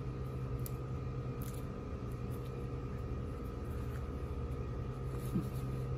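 Steady low machine hum, unchanging, with a few faint small clicks.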